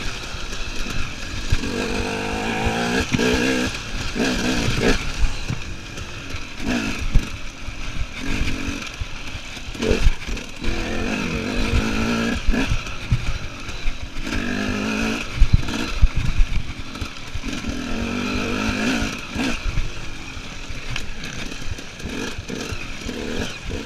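KTM EXC enduro motorcycle being ridden hard, its engine revving up and dropping back again and again, with repeated knocks and clatter from the bike.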